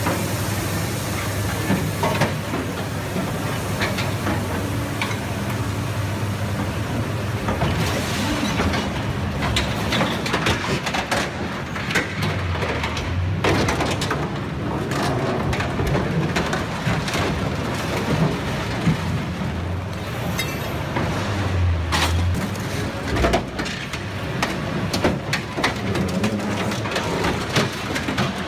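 Liebherr 974 excavator with a scrap shear crushing and tearing apart a dump truck: the excavator's engine runs steadily under load while sheet metal cracks, crunches and bangs again and again, with a few sharper cracks standing out.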